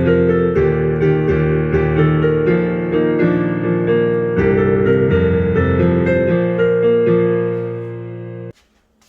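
Piano music: a run of quick, even notes that softens near the end and then cuts off abruptly about eight and a half seconds in.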